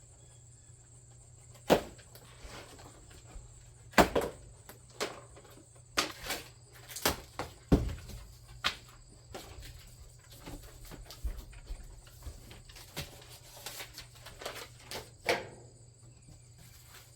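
Handling noises from opening and unpacking a cardboard shipping box: an irregular string of sharp knocks, taps and scrapes, the loudest about two, four and eight seconds in.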